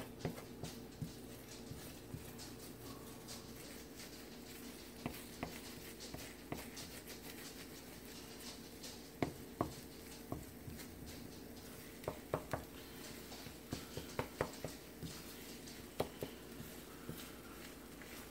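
Spatula scraping and tapping against a nonstick wok while scrambling eggs: scattered short clicks and scrapes, more frequent in the second half, over a faint steady hum.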